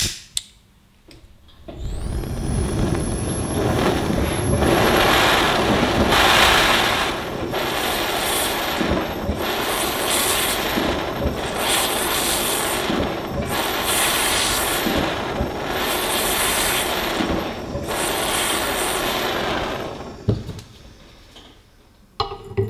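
Small handheld gas torch lit with a lighter, then burning with a steady loud hiss that swells and eases about every second and a half while its flame heats a rusted screw in the grinder's metal frame. The hiss cuts off near the end, followed by a light metallic click as pliers meet the screw.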